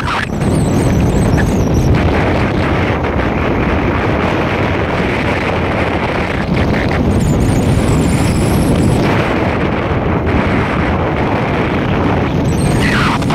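Steady, loud wind rush buffeting the microphone together with road noise from a moving vehicle.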